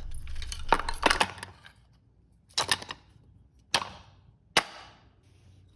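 A series of sharp cracks or snaps, about seven at uneven intervals, each with a short ringing tail.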